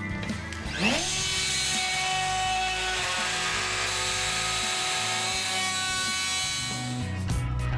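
Manual pantograph router with a 16 mm milling head, its motor spinning up with a rising whine about a second in, then milling a hinge hollow with a steady whirring hiss that stops near the end.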